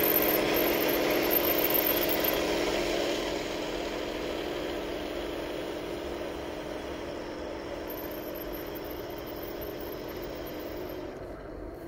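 Heng Long Leopard 2A6 RC tank with metal upgrades driving off, a steady mechanical hum from its running gear that fades as it moves away.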